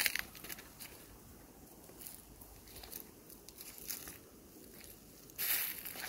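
Footsteps crunching through dry leaf litter: a few faint crackles, then louder crunching and rustling near the end.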